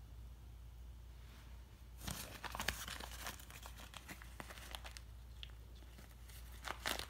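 Cloth rustling and crinkling as a kitten shifts around inside a cotton pillowcase, in a burst of crackles about two seconds in and another near the end.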